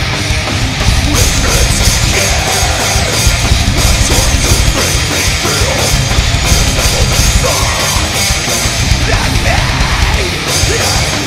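Loud heavy metal music with a drum kit and a driving beat.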